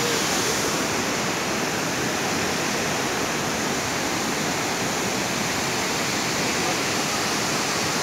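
Steady rushing of a large waterfall, Kynrem Falls, its falling water making an even, unbroken noise.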